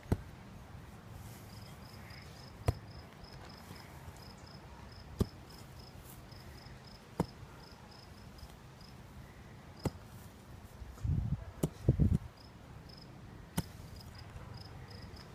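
Mattock blade chopping into grassy sod: single sharp strikes every two to four seconds, with a cluster of heavier thuds about eleven and twelve seconds in. A rapid, high-pitched chirping repeats behind the strikes.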